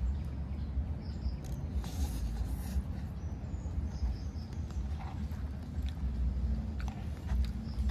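Close-up eating sounds of fried instant cup noodles: chewing and slurping with a few short clicks and smacks, over a steady low rumble.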